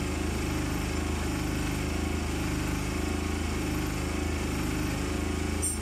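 An engine running steadily with an even, unbroken throb.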